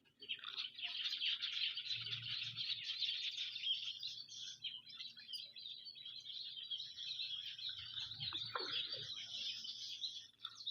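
Many small birds chirping and twittering together, a dense unbroken chatter of short high calls.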